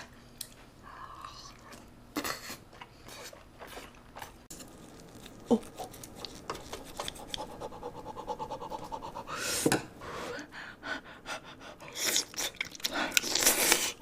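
Close-miked eating sounds: chewing and breathing, with many small scattered clicks and a few louder rustling bursts later on.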